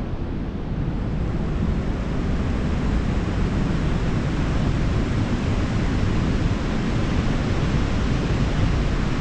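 Steady wind buffeting the microphone over the rush of a wide river.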